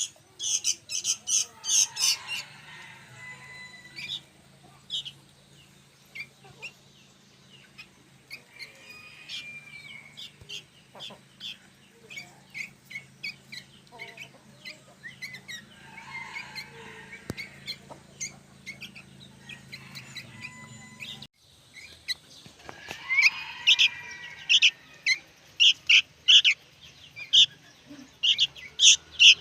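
Young sooty-headed bulbuls (kutilang) calling noisily: rapid strings of short, high chirps, thick at the start and again from about three-quarters of the way through, sparser in between. A low steady hum lies underneath and cuts off suddenly about two-thirds of the way in.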